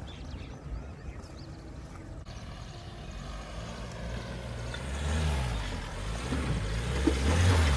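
Mahindra Thar's engine pulling the 4x4 up a rutted dirt climb, getting louder as it approaches, with the revs rising and falling from about halfway in.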